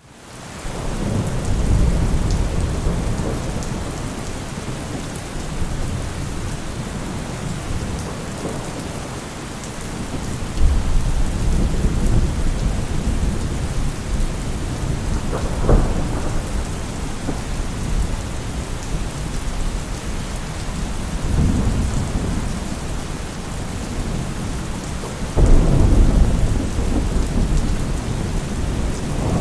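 Steady rain with rolling thunder: the rain fades in over the first second, and deep thunder rumbles swell up several times, the strongest near the end.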